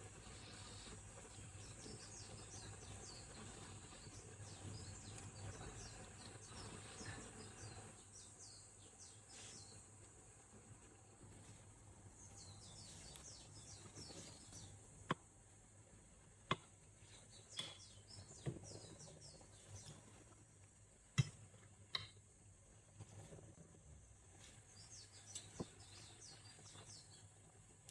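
Faint, high chirping like small birds calling, repeated throughout, with several sharp taps or clicks in the second half, the loudest a little after the middle.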